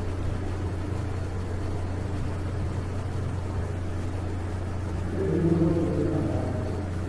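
Steady low hum with faint background noise. About five seconds in, a louder sound with several pitched lines swells and fades over about a second and a half.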